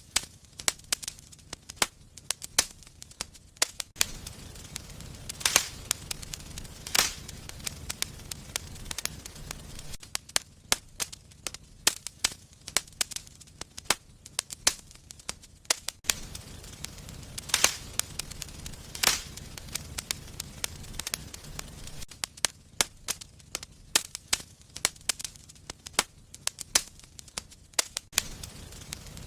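Wood fire crackling in a fireplace: frequent sharp snaps and pops, a few much louder than the rest, over a low rumble of burning that swells and fades.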